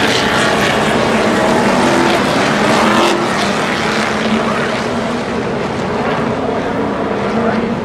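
A field of NASCAR stock cars racing past on the front straight, their V8 engines loud and blending together. The harshest part of the sound eases about three seconds in.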